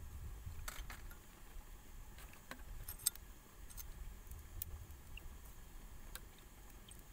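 Metal spoon stirring and clinking against an earthenware bowl of dry seasonings: a few sharp clicks, the loudest about three seconds in, over a low steady rumble.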